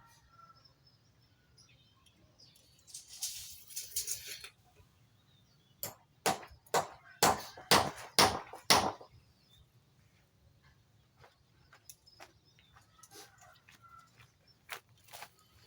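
About eight sharp knocks in quick succession, a little under half a second apart, a few seconds after a brief rustling or scraping noise.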